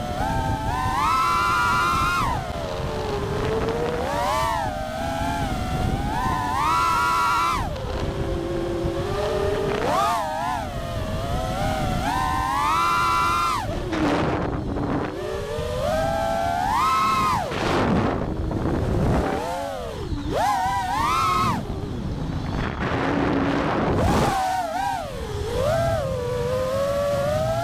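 A 6S FPV quadcopter's brushless motors whining, the pitch rising and falling every second or two as the throttle is punched and eased. The whine briefly drops away a few times as the throttle is cut.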